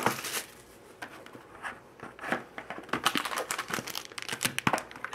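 Plastic shrink-wrap and a foil trading-card pack wrapper crinkling and tearing under the hands, in irregular bursts of crackle with short quieter gaps.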